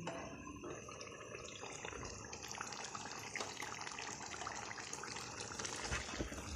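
Chicken pieces and chopped tomatoes frying in oil in a cooking pot: a steady sizzle with fine crackles as the tomatoes start to release their juice.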